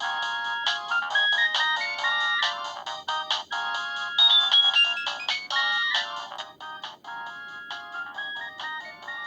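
A Nokia 2660 ringtone playing: a thin melody of quick synthesized notes with no bass, growing quieter over its last few seconds.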